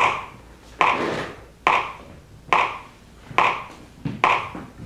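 Electronic metronome clicking a steady beat, about 70 clicks a minute, six even clicks in a row.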